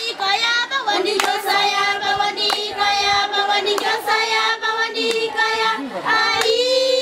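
Children singing a song, with hand claps at intervals of about a second.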